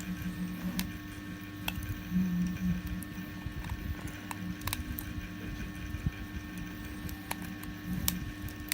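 Irregular small clicks and snaps of 3D-printed plastic support being cut and broken off with hand tools, over a steady low electrical hum.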